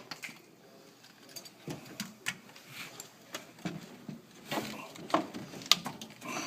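Scattered clicks, taps and knocks of PEX pipe and plastic push-fit fittings being handled, cut and fitted, with a few sharper snaps.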